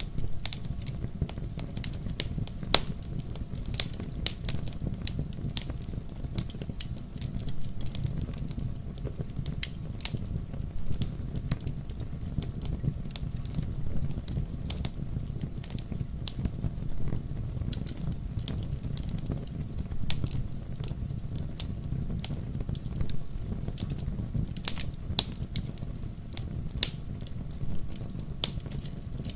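Bonfire burning, crackling with frequent irregular sharp pops over a steady low rumble.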